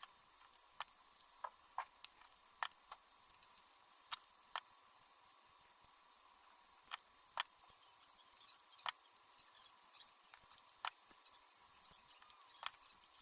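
Scattered light clicks and taps from craft materials being handled while trim is fitted around a cardboard box lid, irregularly spaced, about one to two a second.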